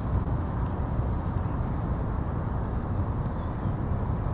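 Steady low outdoor rumble at a pond, with a few faint bird chirps over it.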